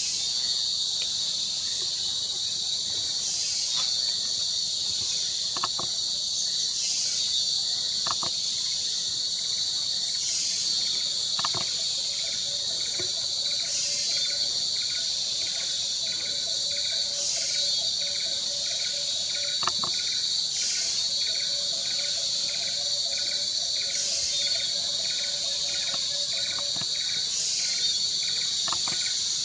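Dense Bornean rainforest insect chorus: a steady, high-pitched shrill buzzing that swells regularly about every three and a half seconds. About twelve seconds in, a faster pulsing insect call joins in, along with a faint lower drone.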